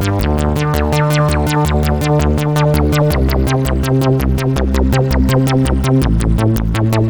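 Sequential Circuits Pro-One analog synthesizer playing a fast repeating pattern of short, bright notes, about seven a second, over a bass line that shifts pitch about three seconds in and again near the end.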